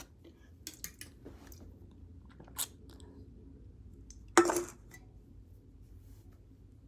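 Quiet mouth and handling sounds while chugging an energy drink from a can: a few small clicks and clinks, then one louder, short sound about four and a half seconds in.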